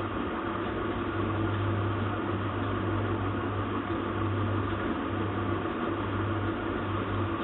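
A steady low hum with an even hiss over it, unchanging throughout, with no clicks or knocks.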